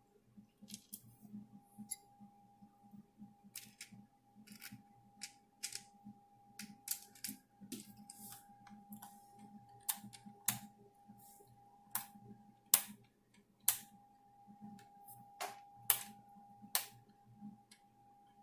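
Irregular sharp clicks and taps of a small Phillips screwdriver and handled parts against a laptop's plastic screen frame as the last two screws are driven back in. A faint steady tone runs underneath.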